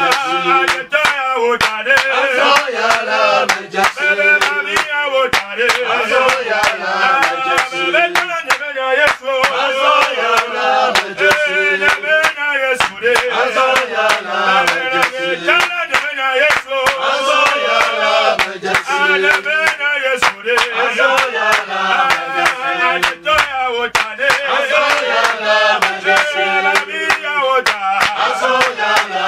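A group of men singing a worship song or chant together, accompanied by regular hand claps on the beat, about two to three a second.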